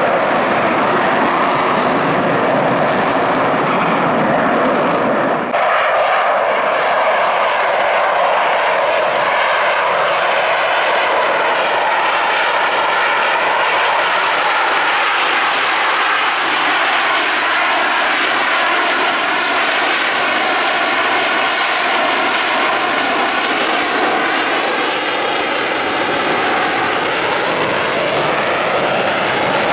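Jet engines of F/A-18 Super Hornets flying a display, a loud steady rush of jet noise. About five and a half seconds in the deep rumble drops away abruptly, and later the noise sweeps up and down in tone as the jets pass.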